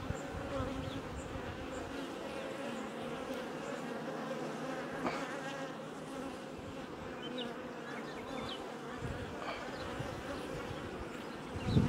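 Honeybees buzzing steadily in an opened hive, many wings making a continuous hum at a steady pitch.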